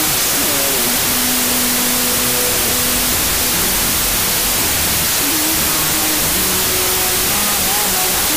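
Loud, steady hiss-like roar with faint music of short held notes beneath it.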